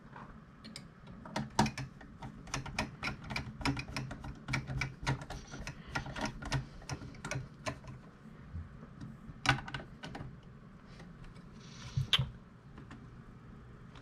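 Rapid, irregular small clicks of a screwdriver turning a screw into the metal drive-mounting bracket of a Synology DS220J NAS, thinning out after about eight seconds. A single louder click comes a little over halfway through, and a brief rustle near the end.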